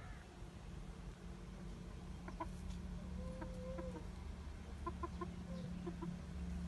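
Domestic chickens clucking softly: a few short clucks, one longer drawn-out note about three seconds in, then a quick run of short clucks about five seconds in, over a low steady background rumble.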